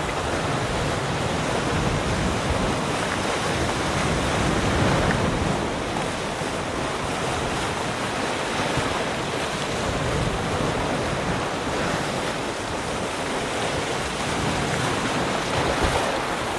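Sea waves lapping and washing around a rock, a steady rushing wash that swells and eases gently, with wind buffeting the microphone.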